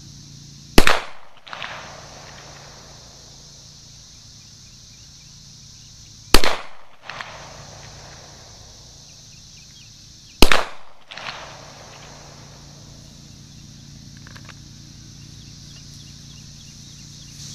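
Three single shots from a Springfield XDM 5.25 pistol in .40 caliber, about five and four seconds apart, each followed by a short echo.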